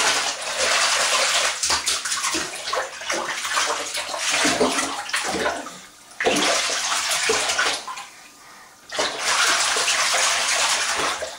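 A baby splashing and slapping shallow bath water in a bathtub, in three bouts with short pauses between.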